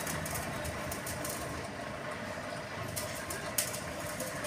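Steady background hum and hiss, with scattered faint ticks and one sharper click about three and a half seconds in.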